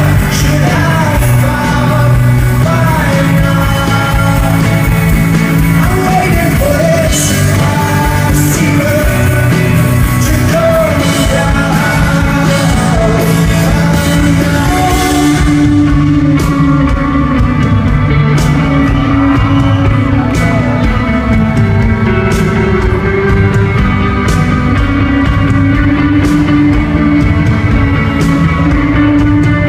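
Live rock band playing a song with a lead vocalist singing over guitars and drums, loud and continuous. Sharp drum or cymbal strikes come through more clearly in the second half.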